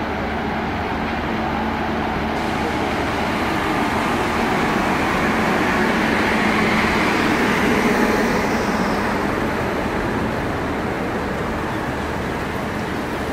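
WAP-5 electric locomotive and its Shatabdi coaches rolling slowly past along a platform: a steady rumble of wheels on rail, growing louder toward the middle and easing off.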